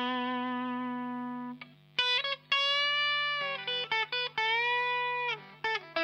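Fender Rocky Stratocaster electric guitar played through a THD Univalve tube amp with a KT88 power tube into a Marshall cabinet with Celestion G12-K100 speakers, playing a single-note lead line. A long held note rings and slowly fades. After a short pause come sustained notes that are bent and shaken with vibrato, then a few quick picked notes near the end.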